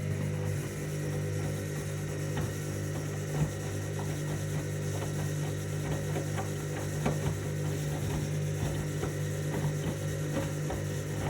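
Washing machine drum turning during the main wash: a steady motor hum with irregular clicks and knocks as the load tumbles.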